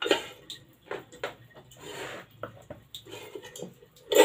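A hand-cranked metal potato chips slicer being handled and loaded with a potato: irregular clanks and knocks of metal parts, with a short rushing sound about two seconds in.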